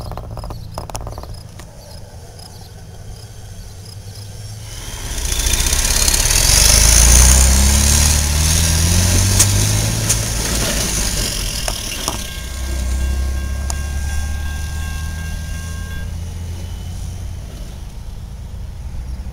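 A diesel tanker tractor-trailer accelerating across the railroad crossing, its engine climbing in pitch as it pulls away. It is loudest about a third of the way in, then eases to a lower, steady rumble.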